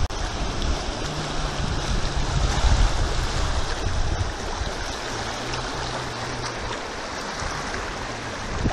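Fast, silty river rapids rushing and churning in standing waves around a small inflatable raft; a steady, dense roar of water.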